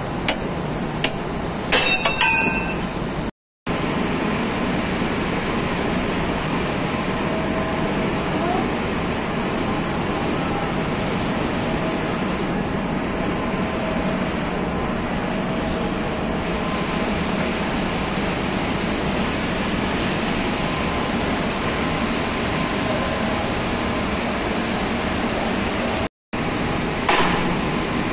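Steady loud industrial machinery din, with a few metal tool clinks in the first seconds. Near the end, a sledgehammer blow rings on the feeder's steel rotor.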